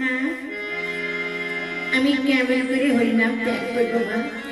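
Music from a puppet-play soundtrack: a long steady note held for about a second and a half, then a wavering sung melody.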